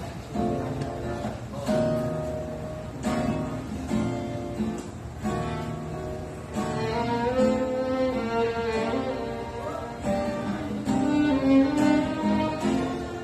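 Instrumental music: acoustic guitar chords struck roughly every second and a half, with long held melody notes over them in the second half.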